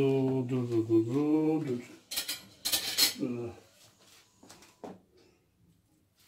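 A drawn-out vocal sound, then a ceramic dinner plate clattering as it is set down on a wooden table about two to three seconds in, followed by a few light knocks.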